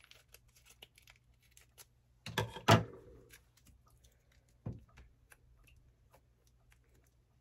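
Plastic noodle sauce packet crinkling and being torn open, with two louder sharp crackles about two and a half seconds in and another shortly after, amid small rustles and clicks as the sauce is squeezed out into the pot.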